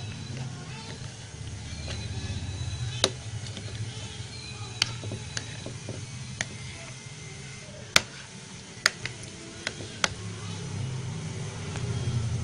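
A metal spoon clicking sharply against a plate about eight times, at uneven intervals, while spreading spice paste over fish. A steady low rumble runs underneath.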